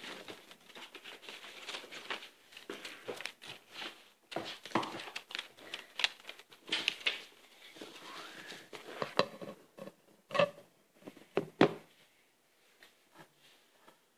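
Pencil scratching and rubbing on drawing paper, with the paper rustling and shifting under the hand. There are two sharp taps, at about ten and eleven and a half seconds, and the sound is much quieter after them.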